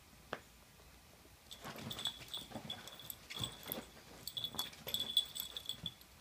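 Dachshund puppy growling over its chew bone in a string of short, uneven bursts, starting about a second and a half in.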